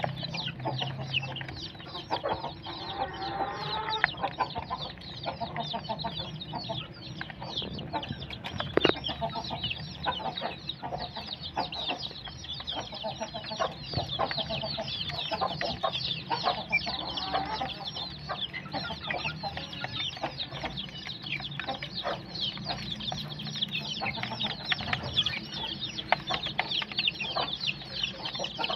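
A flock of young chicks peeping without pause, many short, falling, high-pitched cheeps overlapping, with some lower calls among them. Scattered sharp taps come from beaks pecking feed off a plastic dish.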